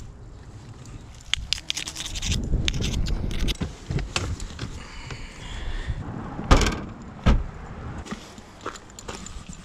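Folding camp chairs and fishing gear clattering and scraping as they are packed up and loaded into a car's trunk, with a run of rattling clicks, then two heavy thumps less than a second apart.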